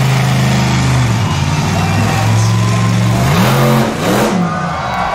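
Monster truck engine running loud at a steady pitch, then revving up and back down twice in quick succession about three seconds in.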